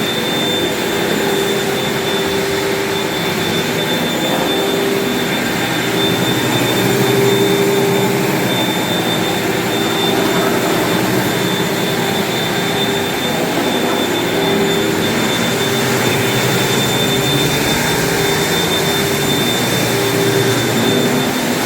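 A floor-cleaning machine with a vacuum motor runs steadily, a constant whine over a rushing noise, as it removes built-up wax from an engineered hardwood floor.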